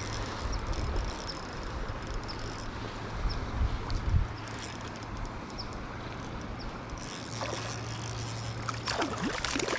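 River water rushing steadily, with a few dull knocks about three and a half to four seconds in.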